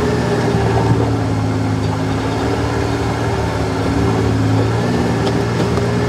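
Kawasaki Mule Pro-FXT side-by-side's three-cylinder gasoline engine running steadily at low speed while driving along a dirt trail, heard from inside the cab.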